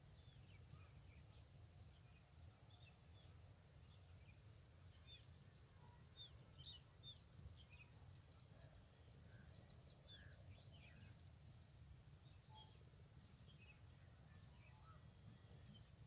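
Faint, scattered chirps and short calls of small birds over a low steady rumble.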